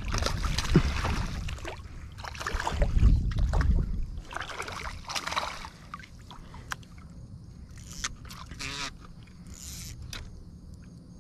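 A hooked largemouth bass thrashing and splashing at the water's surface beside a kayak, in three bursts over the first six seconds. After that come quieter handling noises and a few clicks as the fish is brought alongside.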